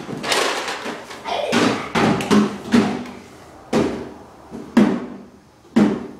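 A series of sharp thuds or knocks, about one a second, each followed by a short, voice-like sound, most likely a child's.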